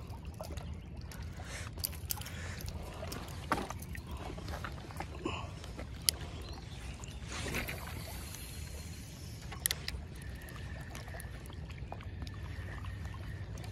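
Spinning reel handling during a cast and retrieve: a few sharp clicks, a short swish about halfway through as the lure is cast, then the reel cranking line in with a faint steady whine near the end, over a steady low rumble.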